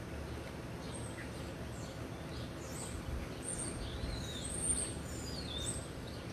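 Birds chirping in the background: a run of high, quick, sweeping calls in the second half, over a steady low outdoor hum.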